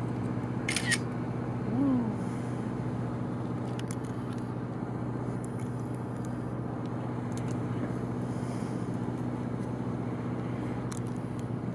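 Steady low engine hum, an even drone with several overtones. A brief sharp hiss comes about a second in, and a short sound rising then falling in pitch follows near two seconds.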